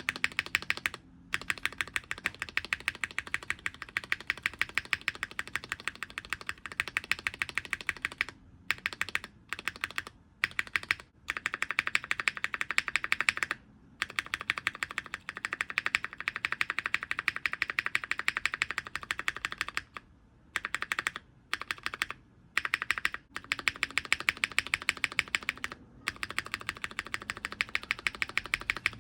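Mechanical keyboard spacebar pressed and released over and over, a fast, even train of clacks with a few short pauses. It is on an unfilmed Cherry MX Black switch, then on a Cherry MX Brown, filmed about a third of the way in and unfilmed near the end.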